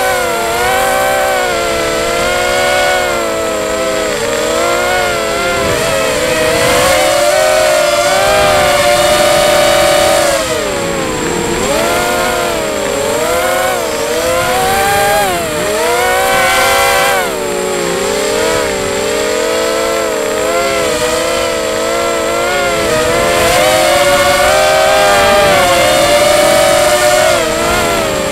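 QAV250 FPV quadcopter's brushless motors and propellers whining, several tones together swinging up and down in pitch every second or so as the throttle changes in flight, with brief drops when the throttle is pulled back. The motors run on a 4S battery.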